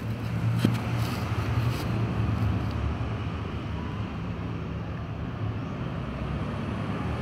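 Steady low engine hum, like motor traffic or an idling vehicle, running throughout, with a few faint clicks between about half a second and two seconds in.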